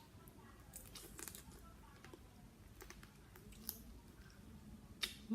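Someone eating blue swimming crab salad: soft chewing with scattered faint crunches and clicks, a few seconds apart.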